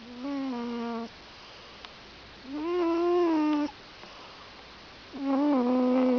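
Domestic cat snoring in its sleep: three drawn-out, pitched snores, each about a second long, one every two and a half seconds.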